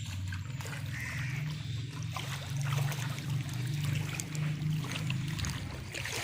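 Shallow water splashing and trickling as someone wades and works the water, over a steady low engine hum.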